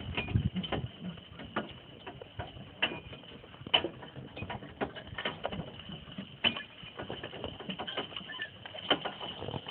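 Irregular clicks, knocks and low thumps: the rattle of a horse-drawn hitch cart and its metal gear on the move.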